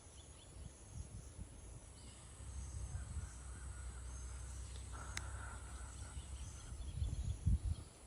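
Low, gusty rumble of storm wind buffeting the microphone as a thunderstorm's wind front approaches, with faint bird chirps above it.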